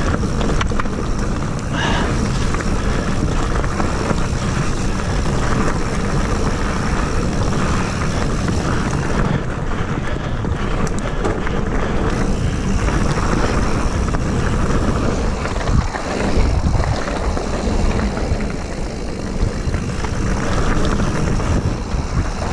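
Mountain bike riding fast down dirt singletrack: wind buffeting the camera microphone and tyres on dirt make a steady rumble and hiss, with occasional small knocks and rattles from the bike.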